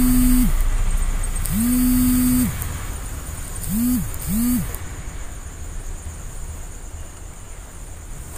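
A low, steady hum in four pulses, two long then two short, each sliding up in pitch as it starts and down as it stops, with a faint rattly hiss alongside.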